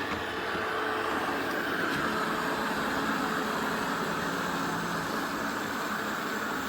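eufy RoboVac 11S Max robot vacuum running, a steady whir from its suction fan with a faint constant hum underneath, and a single click right at the start.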